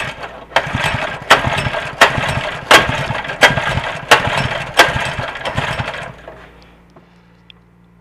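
Honda GX120 engine cranked over by its recoil starter, with the spark plug out and a compression gauge in its place. About seven sharp clacks come roughly every 0.7 s over the whirr of the turning engine, and the cranking stops about six seconds in.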